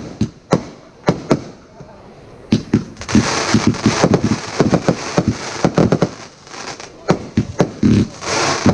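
Consumer fireworks going off in quick succession: a rapid string of sharp bangs, with a hissing, crackling wash building about three seconds in and again near the end.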